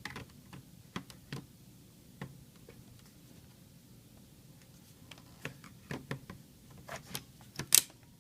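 Scattered plastic clicks and taps as a Dell Latitude E6500 laptop is handled and its battery pushed in and latched. A cluster of clicks comes near the end, the sharpest and loudest of them just before the end.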